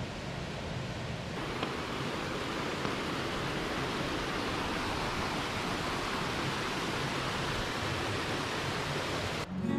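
Small rocky stream cascading over boulders: a steady rush of water that fills out about a second in. Just before the end it cuts off abruptly into acoustic guitar music.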